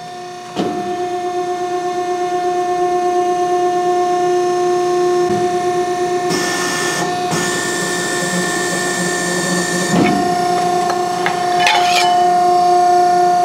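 CNC press brake running through a 90-degree bend in aluminum sheet: a steady machine hum that jumps in level about half a second in and slowly builds, with a hiss for about four seconds in the middle and a sharp click near the ten-second mark.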